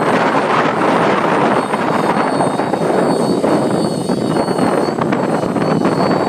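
Raptor 50 radio-controlled nitro helicopter in aerobatic flight: its glow engine running steadily at high revs with a thin high whine, mixed with the rush of its multi-blade main rotor.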